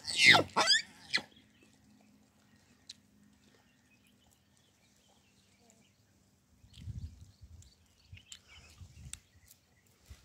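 Hamadryas baboon giving a quick string of loud calls that fall in pitch within about the first second. After that it is nearly quiet, with soft low rumbles and a few faint clicks from about seven seconds in.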